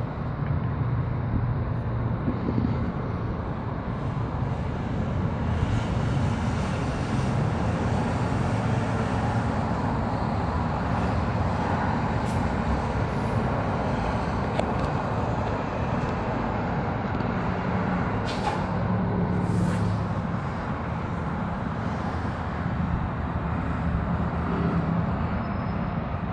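Steady distant city traffic noise, a continuous low hum and hiss, swelling into a deeper low rumble for a couple of seconds a little past the middle.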